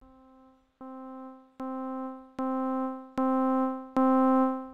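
Logic Pro ES1 software synthesizer playing the same note, middle C, over and over: six held notes about 0.8 s apart, each louder than the last. The rising note velocities drive the amplifier across its full range, so the first notes are barely audible.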